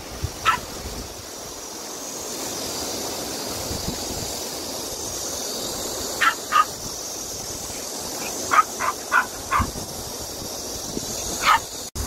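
Small Maltese dog giving short, high-pitched yips: one near the start, a pair at about six seconds, a quick run of four around nine seconds and one more near the end, over a steady high hiss.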